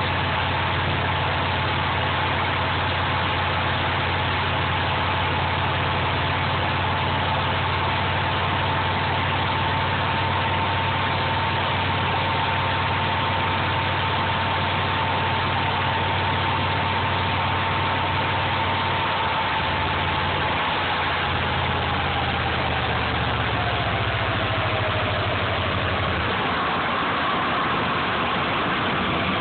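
Subaru EJ22 flat-four engine running steadily with a low hum and a constant whir. A thin whine holds steady, then slowly drops in pitch about twenty seconds in, and a higher whine takes over near the end.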